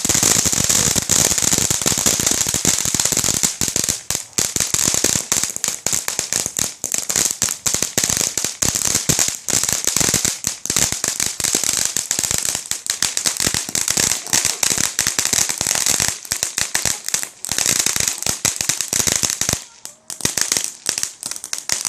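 Red Apple Yellow Bee and Cloud Dragon novelty fireworks burning with a dense, rapid crackling of countless small pops over a steady hiss, thinning briefly about twenty seconds in before carrying on.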